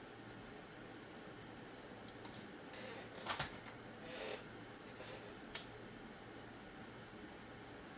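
Faint handling of small tattoo-machine parts on a workbench: a few light clicks and rustles, with a sharp click about three seconds in and another about five and a half seconds in, over a low steady hiss.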